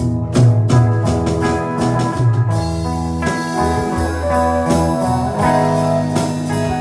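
Live band playing an instrumental passage with no singing: bass and drums under sustained keyboard-like chords, with drum hits prominent in the first couple of seconds.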